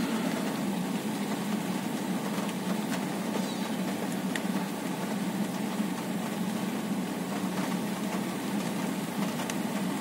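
Steady low hum and hiss of a running car, heard inside the cabin, with a couple of faint ticks.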